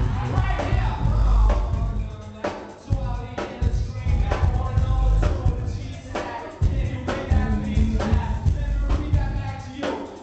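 Live hip-hop performance through a PA: a loud, bass-heavy beat with drum hits and a rapper's voice over it. The bass drops out briefly twice.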